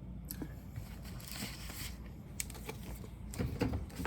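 Objects being handled on a desk: a few light clicks and knocks with a short scrape about a second in, and a cluster of knocks near the end.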